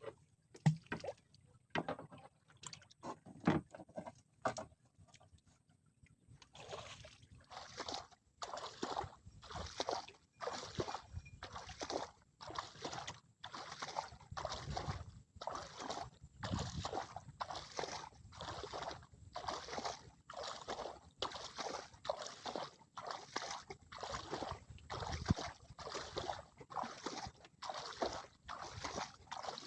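Rhythmic sloshing strokes in water, about three every two seconds, starting a few seconds in after a handful of scattered knocks and clicks.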